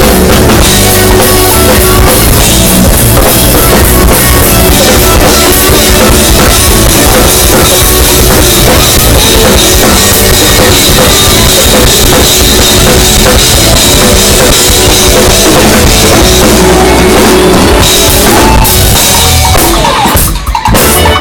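Live band playing loud, dense music driven by a full drum kit with bass drum and cymbals. The sound drops out briefly near the end.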